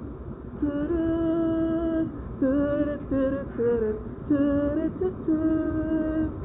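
A single unaccompanied voice singing a run of long held notes, some steady and some wavering in pitch, with no clear words; it starts about half a second in and drops out near the end.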